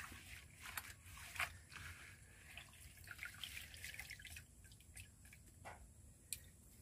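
Faint, irregular dripping and light rustling: rain dripping around the hut while handfuls of chili and sweet potato leaves are pressed into a pot.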